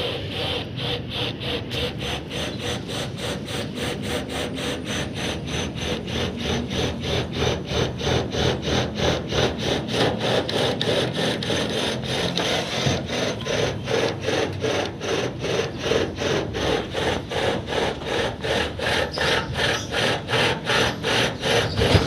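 Rhythmic back-and-forth scraping strokes of a hand tool, about three a second, keeping an even pace, like hand sawing or filing.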